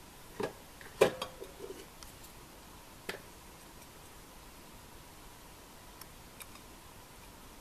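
Tableware clinking and knocking as a plate is picked up: a few sharp knocks, the loudest about a second in with a short ring, one more at about three seconds, then a couple of faint ticks.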